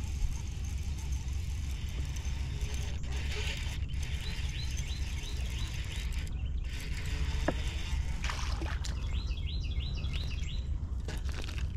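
A steady low rumble of outdoor background noise, with a small bird singing quick runs of short rising chirps twice.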